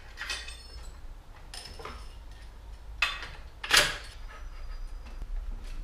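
Light metallic clinks and knocks of bicycle parts being fitted at the head tube: headset spacers and the stem going onto the fork's steerer tube. Two sharper knocks come about three seconds in, the second the loudest.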